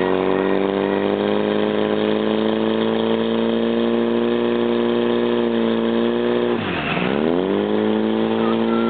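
Portable fire pump's engine running at full revs, a steady high-pitched drone while it pumps water into the attack hoses. About seven seconds in its pitch drops sharply and climbs back within about a second.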